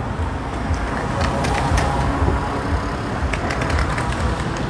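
Steady city street traffic: cars running along a busy multi-lane road, a constant low rumble with scattered short clicks.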